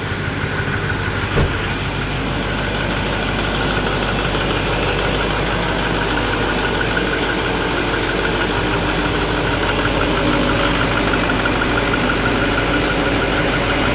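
2006 Duramax 6.6 L turbodiesel V8 idling steadily on a cold engine, with one sharp click about a second and a half in.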